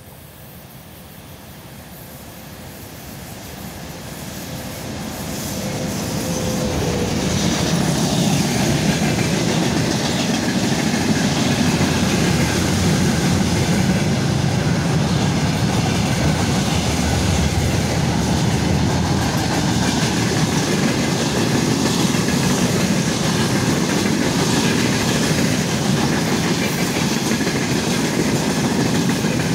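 A freight train hauled by a VL80T electric locomotive approaches and passes, growing louder over the first several seconds. A long string of loaded freight wagons then rolls by at a steady loud level, with a rumble and the clickety-clack of the wheels over the rail joints.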